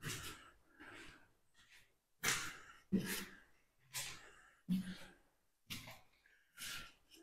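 Footsteps climbing concrete stairs and walking on a concrete floor strewn with debris, about one gritty step a second, several with a dull thud.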